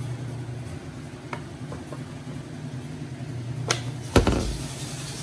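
A few light clicks, then two sharp knocks about four seconds in, the second with a dull thud, over a steady low hum.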